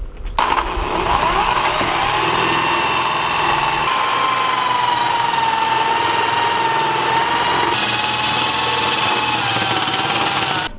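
Power drill running steadily as its bit cuts into a sailboat's metal mast, a continuous whine that wavers slightly in pitch under load.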